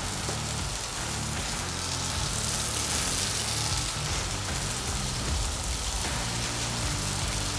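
Avocado oil sizzling steadily on a hot flat-top griddle at about 450 degrees as balls of ground beef sear for smash burgers, with a steady low hum underneath.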